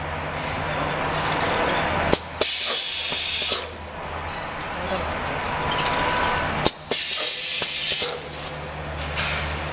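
Pneumatic cup filling and sealing machine running: a steady motor hum with bursts of compressed-air hiss, about a second long, repeating roughly every four seconds as its air cylinders cycle. The sound drops out sharply for a moment twice.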